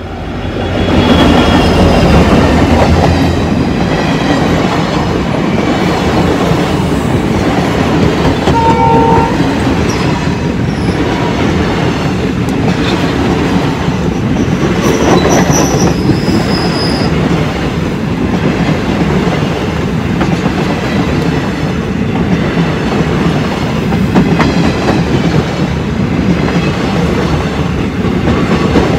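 Indian Railways passenger train passing close by: the locomotive arrives about a second in, then the coaches roll past with a steady rumble and the clatter of wheels over the rails.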